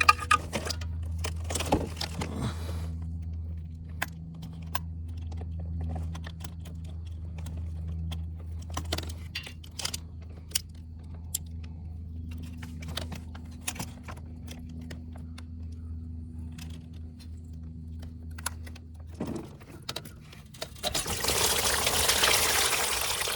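Scattered metal clicks and clinks of hand tools working at a radiator hose, over a steady low hum that stops about 19 s in. About 21 s in, liquid starts gushing out of the disconnected lower radiator hose: the radiator is draining its mix of distilled water and coolant cleaner.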